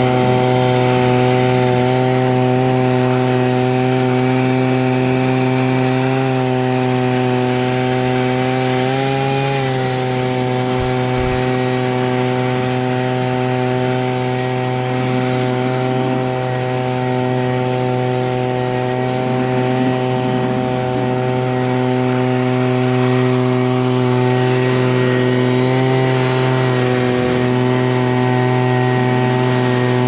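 Tractor diesel engine running at a steady speed, driving a New Holland BC5070 square baler through its PTO shaft, with the baler's chain drive running. The engine note wavers briefly about nine seconds in and again near the end.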